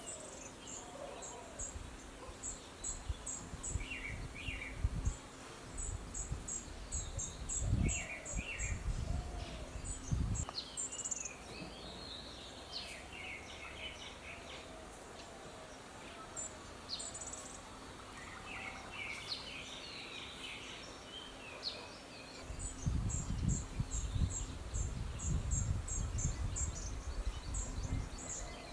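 Birds calling with short chirps and whistles over repeated trains of high, rapid insect chirping. Bursts of low rumble come through in the first third and again near the end.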